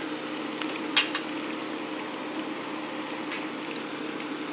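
Hog maw deep-frying in hot vegetable oil in a cast-iron skillet: a steady bubbling sizzle that is dying down, a sign the hog maw is nearly done. One sharp tap comes about a second in.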